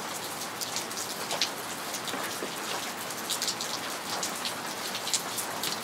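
Steady rain falling, with many separate close drops landing at irregular moments throughout.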